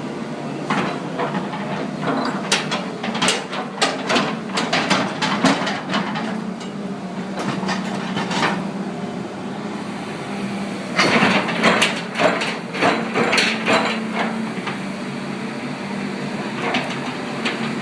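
Hitachi EX200-5 excavator running steadily, with two spells of rapid knocks and clatter, the first a couple of seconds in and the second about eleven seconds in.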